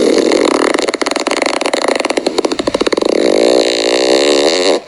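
A long, loud burp with a wavering pitch and a rapid rattling pulse, stopping abruptly near the end.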